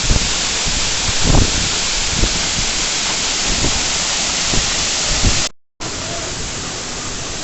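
Steady rushing roar of a waterfall, with a few low thumps in the first half. The sound cuts out for a moment about five and a half seconds in, then the same roar returns.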